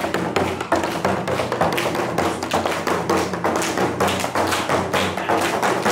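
Large frame drum beaten fast with a stick: a dense, irregular run of strikes, several a second, over a steady low ringing from the drumhead.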